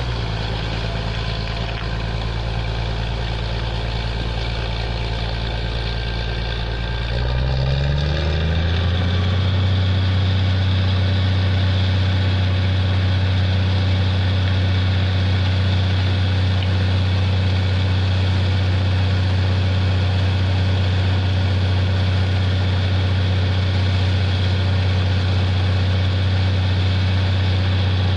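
A borewell drilling rig's engine and air compressor running steadily, under the hiss of compressed air blowing a column of water high out of the borehole. About seven seconds in the engine speeds up, its pitch rising over a second or two, then holds at the higher speed.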